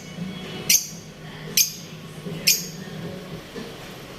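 Pet lovebirds giving three short, shrill chirps, about a second apart.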